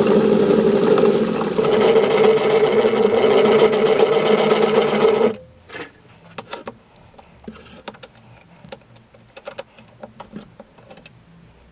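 Bench metal lathe running with a steady hum, stopping abruptly about five seconds in. After that come light scattered clicks and knocks of metal being handled at the chuck.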